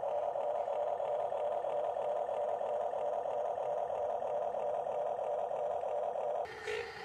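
Electric drive motor and gearbox of a scale RC bulldozer running with a steady whine as it pushes soil. About six and a half seconds in, it gives way to a rougher, noisier sound.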